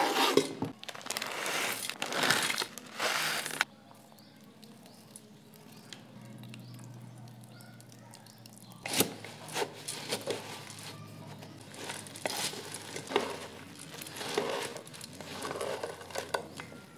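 Dry puffed rice and crisp chaat toppings tipped into a stainless-steel bowl with a loud, crinkly rustle for the first few seconds. After a quiet spell, the mix is stirred with a spoon, giving a crunchy rustle with clicks of the spoon against the steel bowl.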